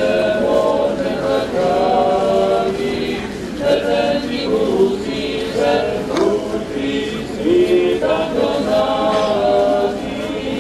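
A large crowd singing a religious hymn together without instruments, in long held notes that step from one pitch to the next.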